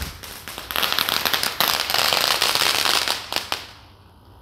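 Firecrackers going off in the street as a rapid, loud crackling string of bangs that thickens about a second in and stops after about three and a half seconds.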